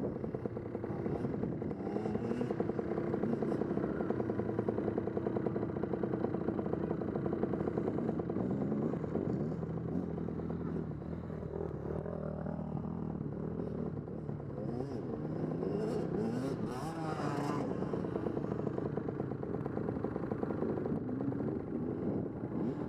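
Dirt bike engines running at idle close by, a steady buzzing drone, with the engine pitch rising and falling in revs about halfway through and again a few seconds later as bikes ride past.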